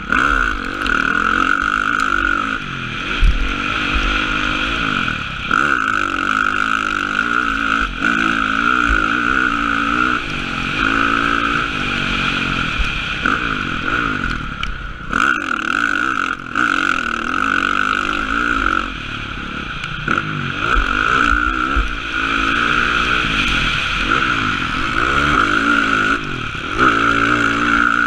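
Motocross dirt bike engine revving up and down again and again as the rider works the throttle round the track, heard from a helmet-mounted camera. The engine briefly backs off about 15 seconds in.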